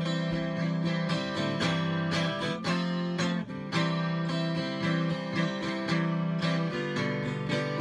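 Acoustic guitar strummed in a steady rhythm, chords ringing without singing.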